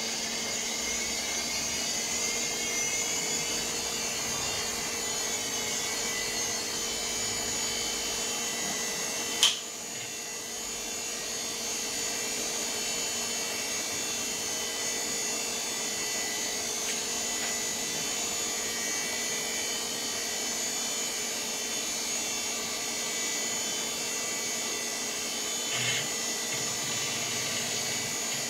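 VAX 4000-100A minicomputer's cooling fans and drives spinning up just after power-on: a rising whine that levels off within the first couple of seconds into a steady whirr with several held tones. The machine is running its power-on self-tests. A single sharp click comes about nine and a half seconds in.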